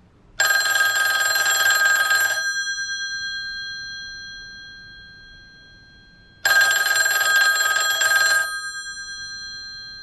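Restored rotary dial desk telephone's mechanical bells ringing twice, each ring about two seconds of rapid clapper strikes, with the gongs ringing on and fading after each. The second ring comes about six seconds after the first start, the cadence of an incoming call.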